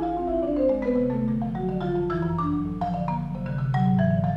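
Solo concert marimba played with mallets, single notes ringing on in a reverberant hall, with sustained rolled low notes entering about a second and a half in beneath the higher notes.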